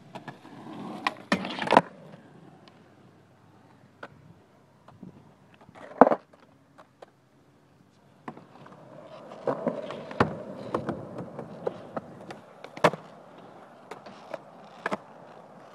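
Skateboard wheels rolling on concrete, broken by a series of sharp clacks of the board striking the ground. The loudest clack comes about six seconds in and another strong one near thirteen seconds, with a brief quiet gap just before eight seconds.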